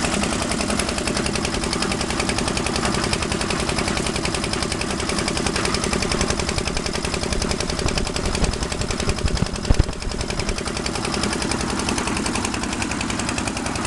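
Concrete mixer's engine running steadily, a rapid even chatter of firing strokes, with a couple of loud thumps about ten seconds in.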